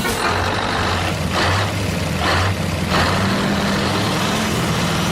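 Steady engine hum like a truck's, broken by three short hisses in the middle.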